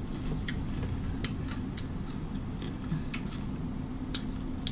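A person chewing food with the mouth close to the microphone: scattered small, crisp clicks at an uneven pace over a steady low hum.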